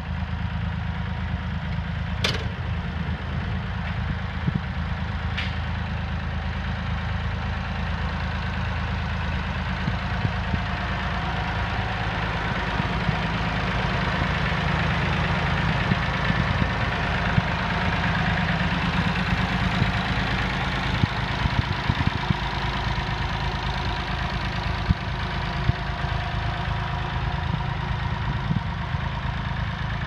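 Massey Ferguson 20C backhoe's three-cylinder diesel engine idling steadily, a little louder through the middle, with two sharp clicks a few seconds in.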